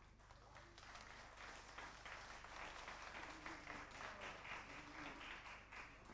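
A crowd applauding, faint: many hands clapping together. It starts about half a second in and dies away near the end.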